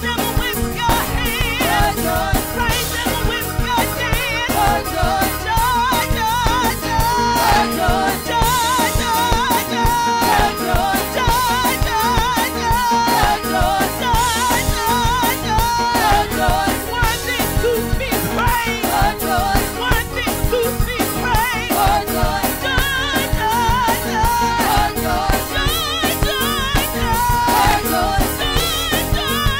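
Live gospel music: a woman singing lead into a microphone with wavering held notes, backed by a choir and a steady beat.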